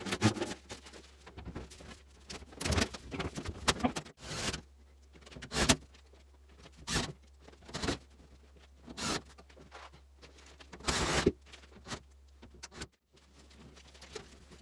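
Sheet-metal furnace duct pipe being handled and fitted into place: a series of short, irregularly spaced scraping and rattling noises.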